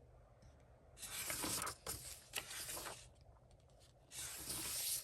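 Paper rustling as coloring book pages are turned: a longer rustle starting about a second in and another near the end.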